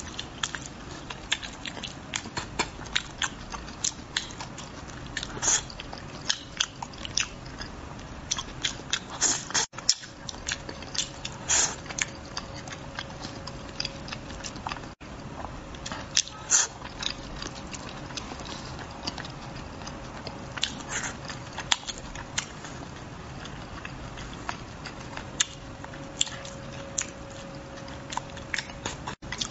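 Close-miked mouth sounds of a man eating braised crucian carp: wet chewing and lip smacks in quick, irregular bursts of sharp clicks.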